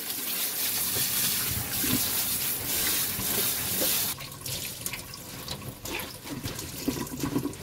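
Kitchen tap running onto cooked somen noodles in a stainless mesh colander while a hand scrubs them, rinsing them so they turn chewy. The water stops about four seconds in, leaving quieter wet squishing as the noodles are squeezed out by hand.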